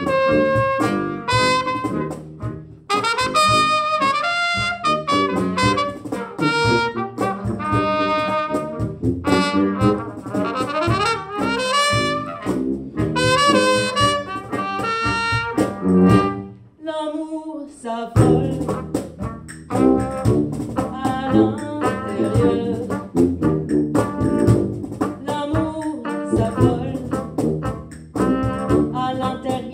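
Brass band instrumental break: trumpet, trombone and sousaphone playing with a clarinet. The band drops out briefly about two-thirds of the way through, then comes back in together.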